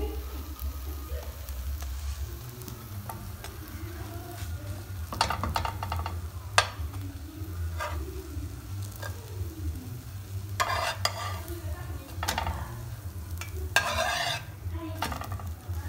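Pancake batter sizzling in a hot honeycomb-textured non-stick frying pan. A slotted metal spatula scrapes and taps against the pan several times in the second half, most strongly as the pancake is turned near the end.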